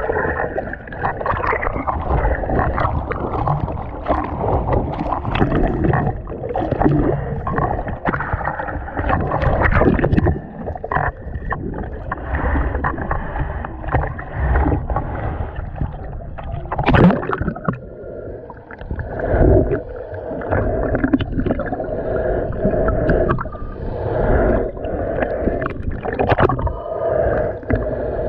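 Muffled underwater sound of seawater picked up by a submerged GoPro HERO 7 Black: continuous sloshing and gurgling with low rumble and scattered knocks, one sharper knock a little past the middle.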